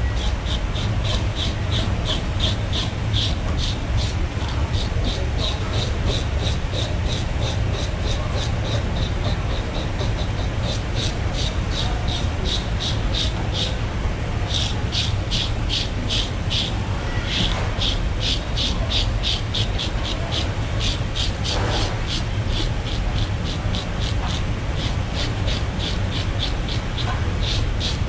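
A knife scraping rhythmically over a whole salmon, about three to four strokes a second with a short pause about halfway, over a steady low rumble.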